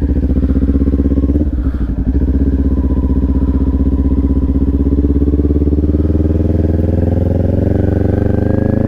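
Kawasaki Ninja 400 parallel-twin engine running while riding at low speed, with a brief break in the engine note about a second and a half in, then revs climbing slowly over the last few seconds and falling away at the end.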